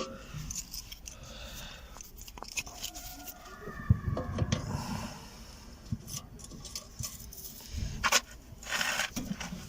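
A wrench working on the rear brake caliper bracket bolts: scattered metal clicks and scraping, with one sharper click about four seconds in.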